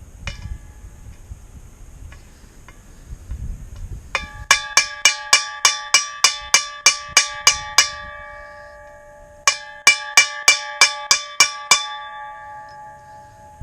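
A hammer striking metal in two quick runs of blows, about four a second, driving a new U-joint's bearing cap into the driveshaft yoke; the metal rings after each blow.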